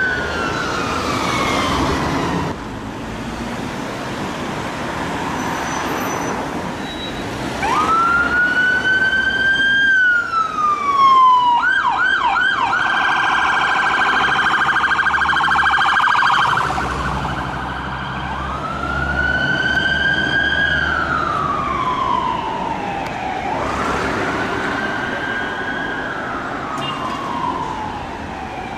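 Fire engine sirens sounding on emergency runs: slow wail sweeps that rise and fall over a few seconds each, changing to a rapid yelp for several seconds midway, over passing traffic.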